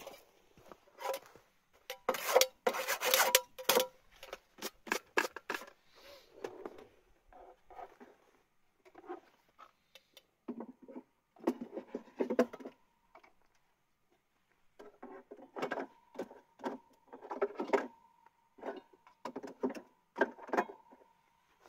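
Irregular rubbing, scraping and knocking of things being handled, a run of short clicks and scuffs with a faint steady tone coming and going in the second half.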